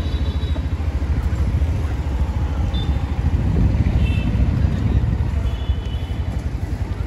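Motorcycle engine running steadily at low speed, with low rumble of wind on the microphone. A few faint, short high-pitched tones come and go in the middle.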